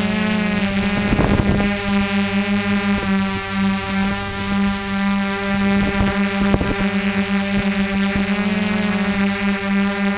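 Small multirotor drone's propellers running steadily in flight, a strong buzzing hum whose pitch wavers slightly as the rotors change speed. Brief crackles come about a second in and again around six seconds.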